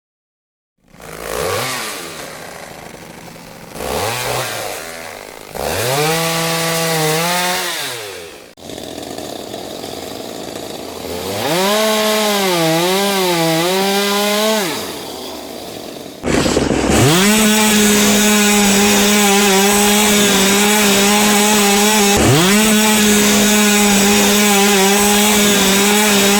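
Chainsaw engine revving in separate blips whose pitch rises, wavers and falls, then held at high speed from about two-thirds of the way in, with two brief dips in pitch.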